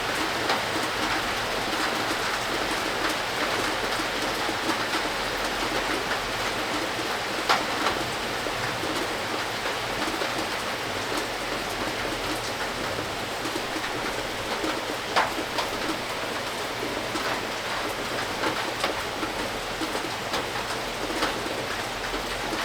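Steady rain drumming on a tin roof, with a few louder single drops striking now and then.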